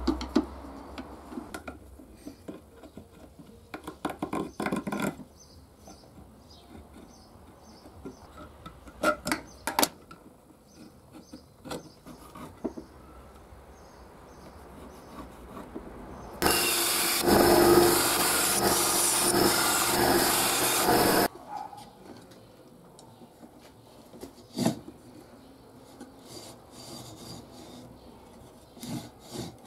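Workbench handling sounds: wooden strips and metal parts being rubbed, tapped and clicked together. In the middle, a loud power tool runs for about five seconds and cuts off abruptly.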